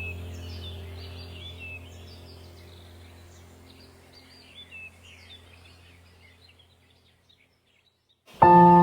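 Small birds chirping and tweeting over a low steady drone, all fading out to silence. Near the end a loud ringing tone with several overtones starts suddenly.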